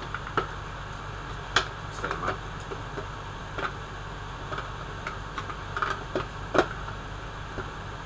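Cylindrical 18650 lithium-ion cells clicking and clattering as they are handled and set into an opened plastic power-tool battery case: a handful of separate knocks, the loudest about six and a half seconds in, over a steady low hum.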